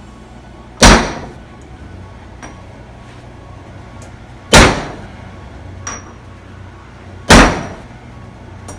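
Three loud hammer blows a few seconds apart, each with a short ring, driving a tight bearing onto its seat after heating it failed to let it slip on.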